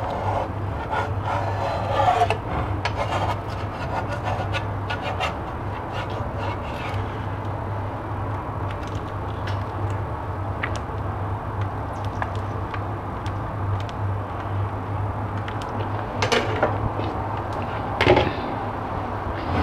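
Spatula and hands working a thin omelette in a nonstick frying pan, folding the egg over a mound of fried rice: scattered light clicks and scrapes on the pan, with a steady low hum underneath. Two louder knocks come near the end.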